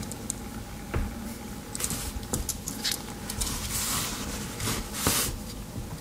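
Victorinox Ranger Swiss Army knife being handled: a few sharp clicks, the loudest about a second in, among short bursts of scraping and rustling.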